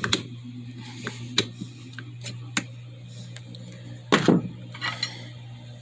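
Scattered clicks and knocks of drill bits and the rotary hammer's spring-loaded chuck collar being handled, with one louder clatter about four seconds in, over a steady low hum.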